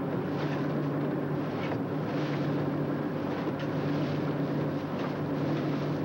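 A fishing dragger's engine running with a steady hum, under the hiss and splash of a deck hose spraying water over fish in the deck pen.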